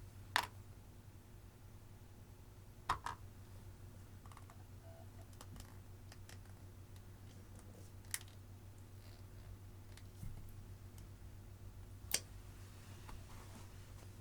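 A few sharp, isolated clicks and taps several seconds apart, from plastic makeup cases and tools being handled, over a steady low hum.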